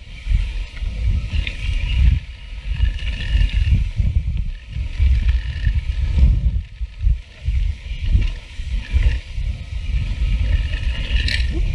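Wind buffeting an action camera's microphone in gusts over the rolling and rattling of a mountain bike riding down dirt singletrack, with a short sharper rattle near the end.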